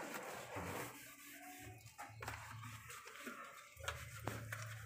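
Faint rubbing of a soapy hand and sponge on a motorcycle's plastic bodywork, with a few light clicks and taps.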